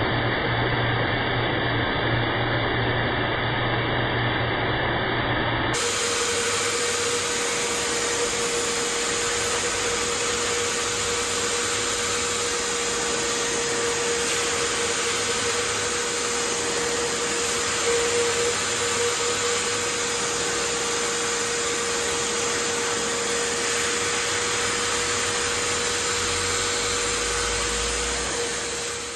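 Vacuum cleaner running steadily. About six seconds in the sound cuts to another take of the machine, now with a steady whine over the rushing air.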